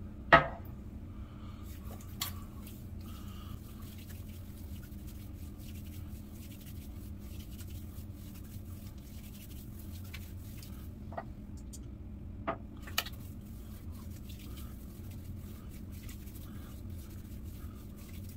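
Quiet steady room hum with a sharp knock just after the start and a few fainter knocks and clicks later on, as an aftershave bottle is handled and set down while the aftershave is applied.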